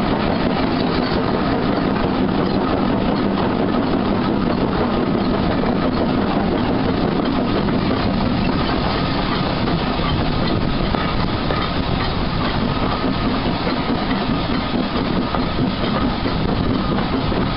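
Bagnall 0-4-0ST saddle-tank steam locomotive working hard with its train, heard from a carriage just behind it, together with the carriage's wheels running on the rails. The noise is loud and steady throughout.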